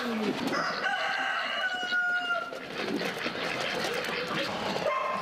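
A rooster crowing once, a single drawn-out call of about a second and a half, starting about a second in. Mixed poultry noises follow.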